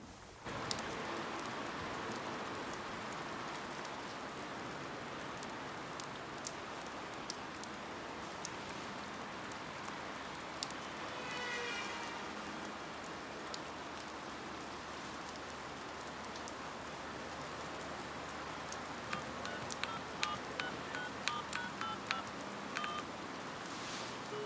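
Steady rain. Near the end, a push-button telephone keypad sounds a quick string of about ten short dialling beeps as a number is dialled.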